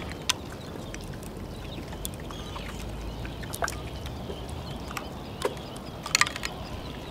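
Many short bird calls over a steady low rumble of wind, with sharp clicks now and then and a quick cluster of them about six seconds in.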